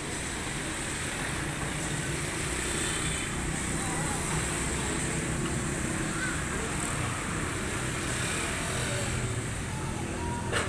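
Steady road traffic noise from passing vehicles, with a single short click near the end.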